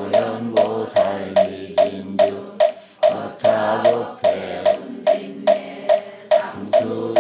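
Buddhist chanting by a seated congregation in a low, steady monotone, kept in time by a moktak (wooden fish) struck about twice a second. The voices pause briefly for breath about three seconds in while the strikes continue.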